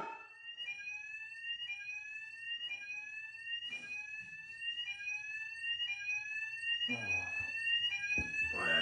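Electronic fire alarm sounding: a rising sweep tone that repeats about once a second.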